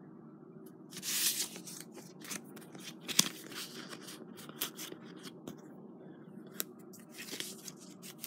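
Paper pages of a book being turned and handled: dry rustling in several short bursts, with a sharp crackle about three seconds in.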